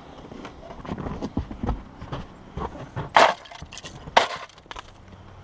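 Snow shovel digging and chopping into deep snow on a roof: a run of dull, irregular thuds, with two sharper, louder scrapes about three and four seconds in.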